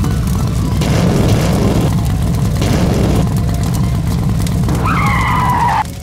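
Race-car engine sound effect, loud and steady, with a short screeching squeal near the end before it cuts off suddenly.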